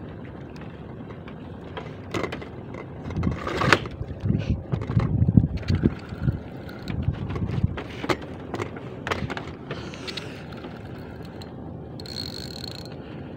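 Wind buffeting the microphone in gusts, with scattered knocks and clicks from handling the rod. Near the end, about a second of whirring from a spinning reel being worked by hand.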